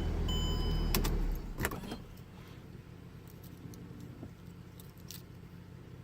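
Keys jangling at the ignition of a 2009 Mercedes-Benz E320 BlueTec diesel as it starts: a loud low rumble with a steady high chime tone and a few clicks, dropping about two seconds in to a quieter steady idle hum.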